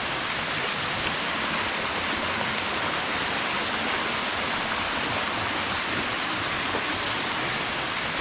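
Steady, even hiss of water in rainforest: heavy rain falling, mixed with a rushing stream.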